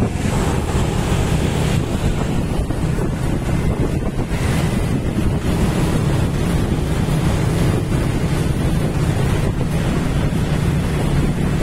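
Wind buffeting the microphone of a camera on a moving motorcycle, over the low steady hum of the motorcycle's engine.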